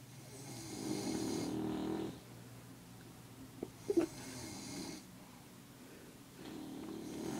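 A bulldog and a man snoring in turns. A long snore comes about a second in, two short sharp sounds and a weaker snore come near the middle, and another snore builds near the end.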